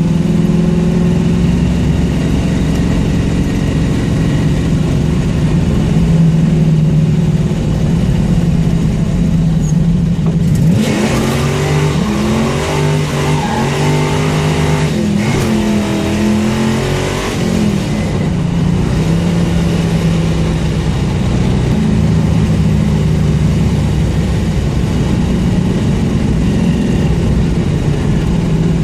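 Car engine with an exhaust leak running steadily. About ten seconds in it is revved hard for several seconds, its pitch rising and falling repeatedly, then it settles back to a steady drone.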